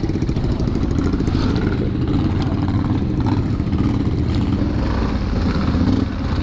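ATV engine running steadily and loudly.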